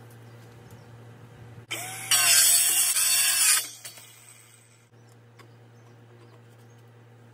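A power saw cutting a piece off 4-inch schedule 40 PVC drain pipe: one loud burst of about two seconds, starting a little under two seconds in and stopping sharply.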